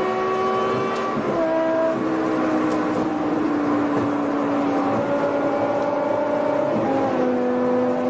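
Supercharged 5.0-litre V10 of a BMW E60 M5, heard from inside the cabin at highway speed. Its pitch drops about a second in, sinks slowly, rises again around the middle and drops once more near the end, as with shifts and throttle changes.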